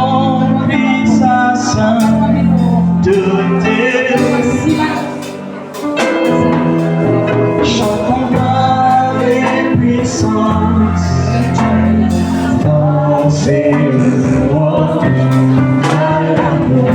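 Gospel music: a song with singing over steady bass and accompaniment, dipping briefly about five seconds in.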